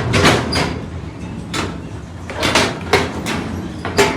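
A string of sharp knocks and bangs at irregular intervals, about eight or nine in all, the loudest near the start and just before the end.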